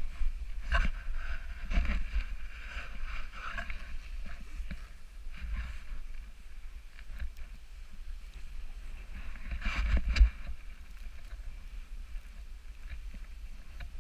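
Snowboard sliding and turning over snow, a steady scraping hiss with louder scrapes about one and two seconds in and the loudest, longest one around ten seconds in, over wind rumbling on the camera's microphone.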